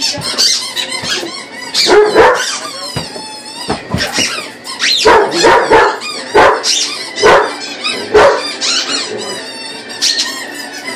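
A dog barking repeatedly in short sharp barks, mixed with the high squeaks of a squeaky rubber chicken toy.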